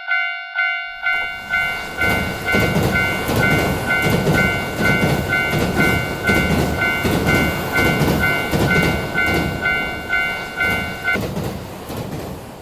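Japanese railroad crossing bell ringing "kan kan" about twice a second. About a second in, a train joins it, rumbling past with a rhythmic clickety-clack of wheels over the rail joints. The bell stops about eleven seconds in while the train goes on.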